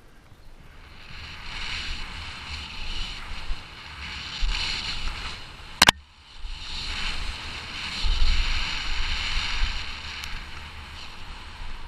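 Kona Process 167 mountain bike riding fast down a dirt trail: wind rushing over the microphone and the tyres rolling and rattling over the ground, with a low rumble from bumps. About six seconds in comes one sharp clack, the loudest sound, followed by a brief lull before the rushing picks up again.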